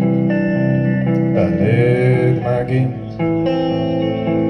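Live guitar music: a guitar plays sustained chords that change every second or so between sung lines.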